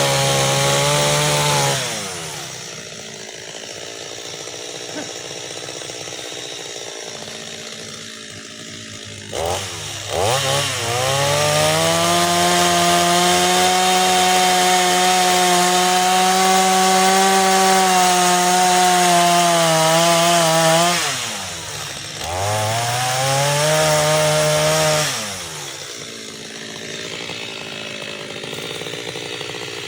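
Stihl MS 230 two-stroke chainsaw engine running at high revs, dropping to idle, then revved up and held high for about ten seconds. It drops to idle again, gives one short rev of about two seconds, and settles back to idle near the end.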